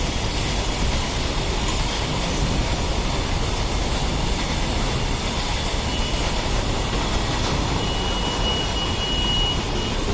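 Train passing close by at speed: a steady rushing noise of wheels on rails, with a thin high-pitched squeal about eight seconds in lasting a second and a half.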